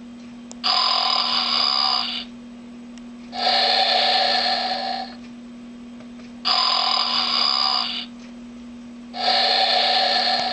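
Animated toy cow playing its recorded snoring through a small speaker: a buzzy snore about a second and a half long, repeating four times with short pauses between. A steady low hum runs underneath.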